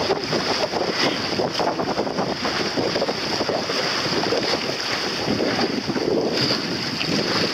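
Wind buffeting the microphone over the rush of choppy water, from aboard a moving boat, with a steady high hiss.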